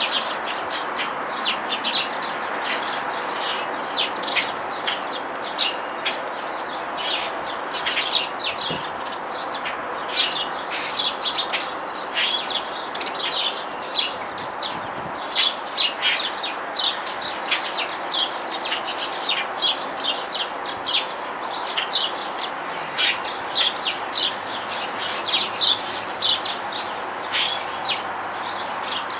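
Small wild songbirds chirping in many quick, short calls, busiest and loudest near the end, over a steady background rush.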